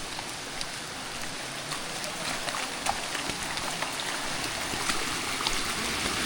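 Rain falling on jungle foliage: a steady hiss with scattered sharp drops, growing slightly louder.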